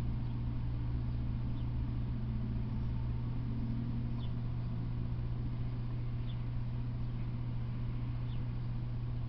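A steady low hum with faint short high chirps about every two seconds, like a distant bird calling.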